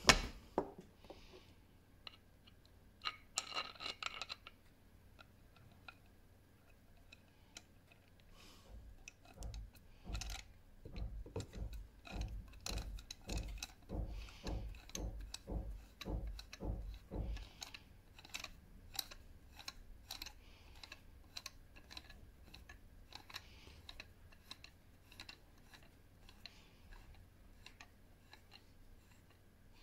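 Hand work on the metal threaded parts of a battery holder clamp: scattered small metal clicks, with a regular run of strokes about two a second, each with a low knock, in the middle stretch.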